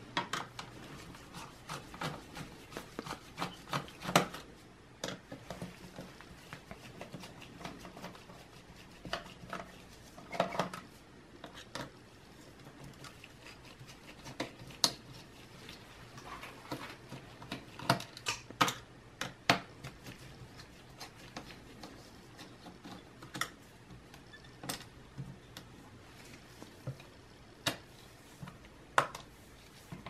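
Scattered small clicks and light metal taps from a mini Phillips screwdriver and fingers working the screws that hold the shared CPU and graphics heatsink of a Dell Latitude E6540 laptop.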